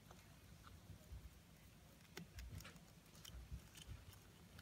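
Near silence broken by faint, scattered clicks and scratches of a Blaptica dubia roach colony crawling over each other and feeding on an orange, with a few soft low thumps.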